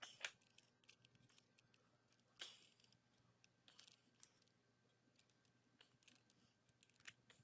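Near silence broken by a few faint, scattered clicks and taps, the strongest about two and a half seconds in.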